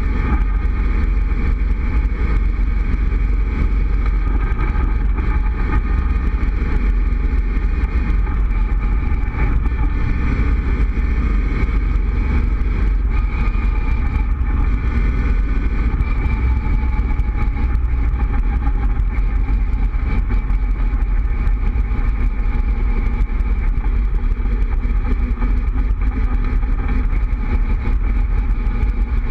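Open-top Cobra roadster driving at a steady cruise: engine running with wind rushing past the open cockpit.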